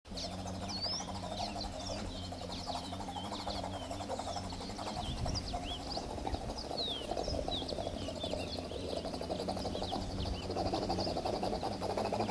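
Helicopter imitation made with floppy lips and phlegm in the throat: a steady, rapid throbbing like rotor blades that swells a little near the end. Birds chirp in the background.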